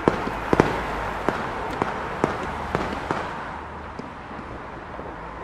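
Fireworks going off: about ten sharp bangs at irregular intervals over a continuous crackle, growing quieter toward the end.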